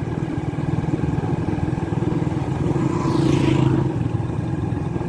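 Engine of a small vehicle running steadily as it drives along, with a brief rushing hiss about three seconds in.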